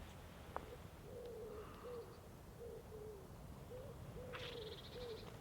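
Faint, low bird calls repeating one after another, each short and even in pitch. A brief, higher, buzzy call from another bird comes near the end.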